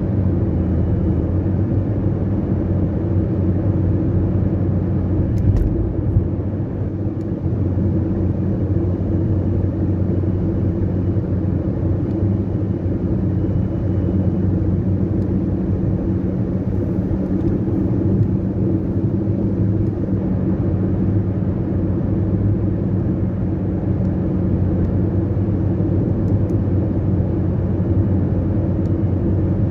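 Steady in-cabin noise of a car cruising at highway speed: a low, even engine drone over tyre and road rumble.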